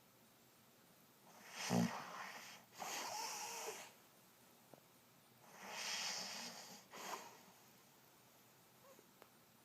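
A man snoring in his sleep, breath by breath. The loudest snore comes about a second and a half in, followed by a breathy out-breath. A second snoring breath follows around six seconds in.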